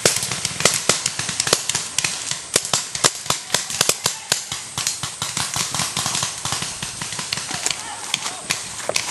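Paintball markers firing in a skirmish: many sharp pops, several a second, irregular and sometimes in quick runs, from more than one gun.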